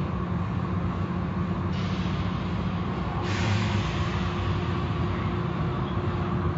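Car wash machinery running with a steady low hum, joined by a rushing hiss a little under two seconds in that grows louder about three seconds in.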